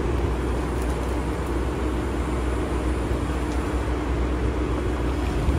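Mini digger's engine running steadily with a low rumble and a constant tone as it digs in the flooded ground.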